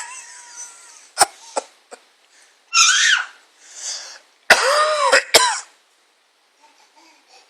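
Coughing in several short bouts, some with a pitched, rising-and-falling voice in them and sharp catches between. It stops about six seconds in.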